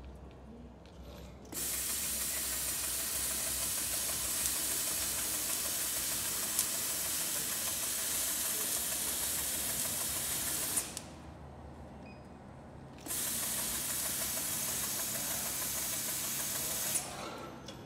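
Roll cutter's circular blade spinning and cutting through a roll of asphaltic bitumen roofing membrane: a steady loud hiss that starts about a second and a half in, stops for about two seconds past the middle, then runs again for about four seconds before cutting off with a click.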